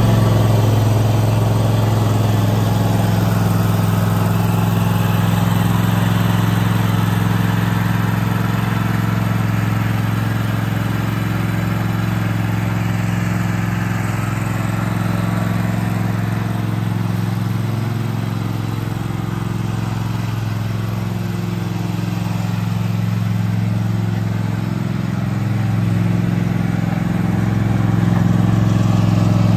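Toro TimeCutter zero-turn mower's engine running steadily with a low, even hum. It is a little quieter through the middle and grows louder near the end as the mower comes closer.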